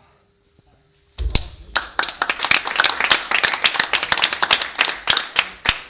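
A few people clapping, breaking out suddenly about a second in, with the individual claps sharp and distinct.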